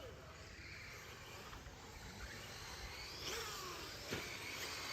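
Electric RC short course trucks racing on a dirt track, their motors whining in glides that rise and fall with throttle, including a falling sweep a little past three seconds in.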